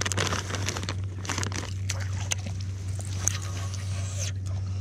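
Rustling and scattered small clicks and knocks over a steady low hum.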